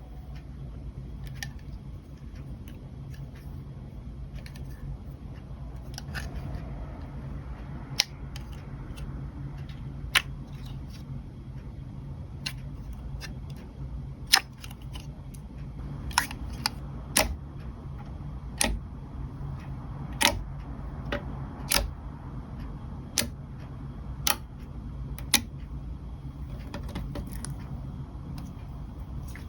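Clear slime being handled, making sharp clicking pops: a few scattered at first, then about one a second through the second half, over a steady low hum.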